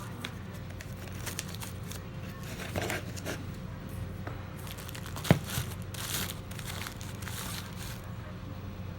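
Crinkling and rustling of hands handling a firework cake box and its packaging, with one sharp click a little past halfway, over a low steady hum.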